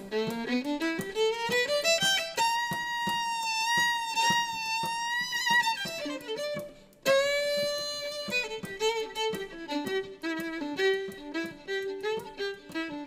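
Violin playing: a long slide up to a high note held with vibrato, a short break about seven seconds in, then a lower held note and a run of quick short notes. Short accompanying notes patter underneath throughout.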